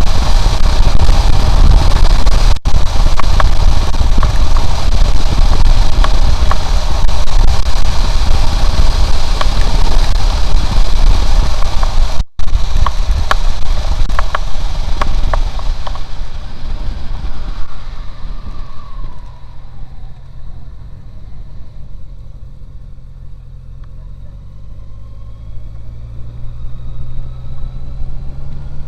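Honda CB750 inline-four motorcycle heard from the rider's seat, with heavy wind noise on the microphone at highway speed covering the engine for most of the first half. The wind dies away as the bike slows. The engine note then falls, and rises again near the end as the bike pulls away at low speed.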